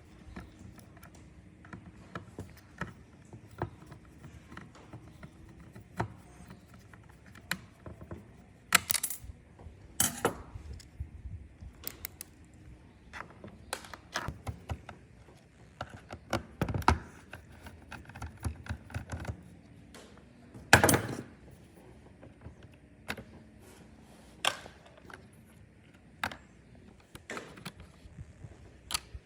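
Irregular clicks, taps and clatters of small hard parts and tools being handled while working on a robot vacuum, with a few louder knocks scattered through.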